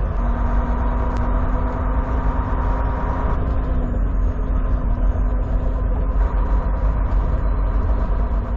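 Transport truck driving on the highway, heard inside the cab: a steady rumble of engine and road noise.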